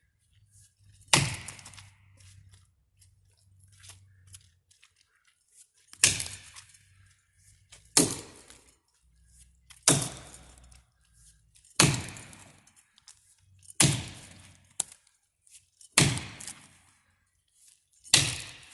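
Seven Pines Forge American felling axe chopping into a dead ash trunk: eight sharp strikes, one about a second in, then after a pause a steady stroke about every two seconds.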